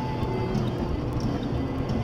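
Music with a steady beat over the low rumble of a car driving on a snowy road.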